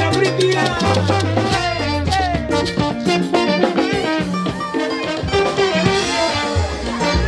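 Live salsa band playing: trombones over a steady bass line and percussion beat.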